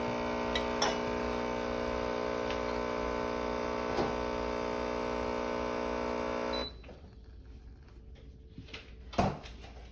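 Compact 20-bar espresso machine's pump running steadily while pulling a shot. It cuts off abruptly about two-thirds of the way through, followed by a few light clicks and a single knock near the end.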